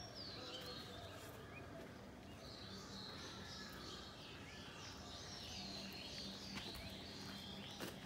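Birds calling faintly, with repeated short chirps and falling whistles over a low background hum.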